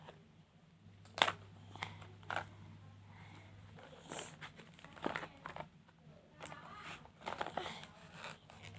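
Plastic toy packaging being handled and opened by hand, making irregular crinkles, rustles and small clicks.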